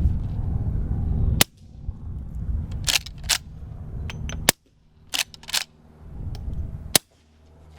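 Suppressed GForce LVR357 lever-action rifle with a Rugged Obsidian 9 suppressor firing subsonic .38 Special: three quiet shots about two and a half seconds apart, with the lever worked between shots as a pair of metallic clacks.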